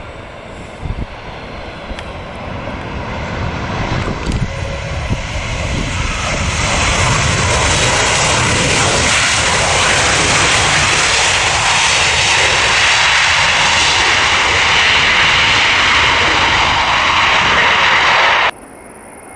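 Boeing 737-8 MAX's CFM LEAP-1B jet engines as the airliner passes close. The rushing engine noise grows louder over several seconds, holds loud, and cuts off abruptly near the end.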